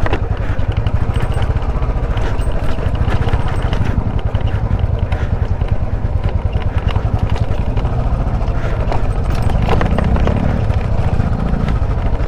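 Motorcycle engine running at low speed while the bike rides down bare rock, with a steady low rumble and a few scattered clicks and knocks.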